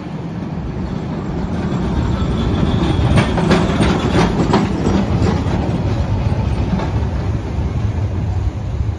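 Heritage streetcar running past close by on street rails: a low rumble that grows louder as it approaches, with a quick run of clicks from the wheels about three to five seconds in.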